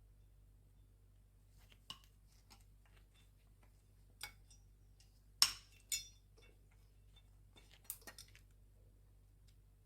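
A few short, sharp clicks and clinks of small hard parts being handled. The loudest comes about halfway through, with a quick pair just after it and a small cluster near the end, over a faint steady low hum.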